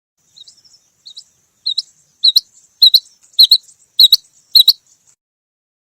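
Female rain quail calling: a series of about eight short, high double-note calls at an even pace, faint at first and then loud, stopping about five seconds in.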